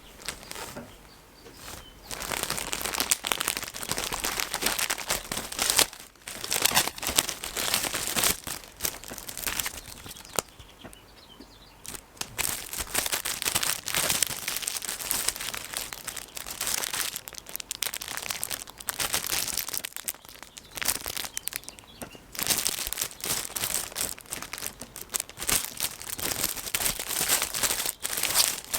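Packaging crinkling and rustling as it is handled and unwrapped, in uneven spells of crackle with short pauses between them.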